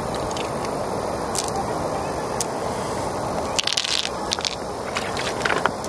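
Steady rush of shallow stream water, with small clicks and taps as pearls are handled against an opened river mussel's shell, mostly in the second half.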